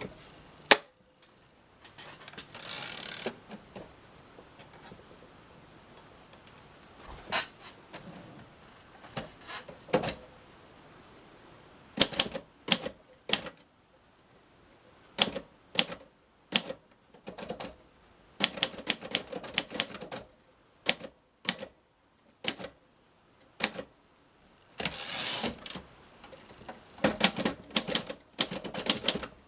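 1951 Royal Quiet De Luxe manual portable typewriter being typed on. Sharp key strikes come sparsely at first, then in quick irregular runs from partway through, with one loud clack near the start. Twice, about three seconds in and near the end, the mechanism gives a longer rasping slide of about a second.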